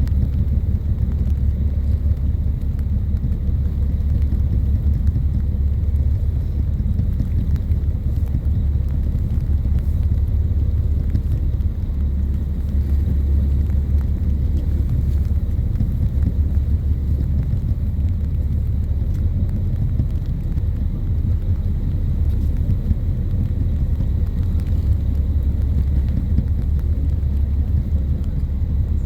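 Steady low rumble of a whale-watching boat's engine running.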